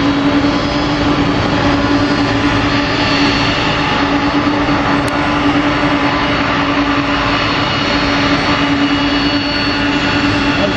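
Jet engines of a Boeing 747 freighter running steadily as it taxis past: an even rushing noise with a constant low hum.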